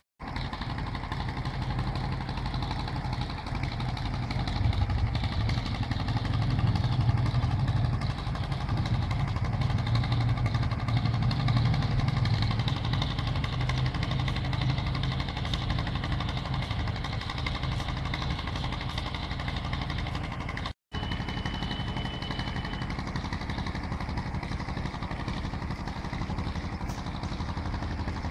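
A steady low engine hum with background outdoor noise, briefly cutting out about two-thirds of the way through, followed by a faint high tone lasting a couple of seconds.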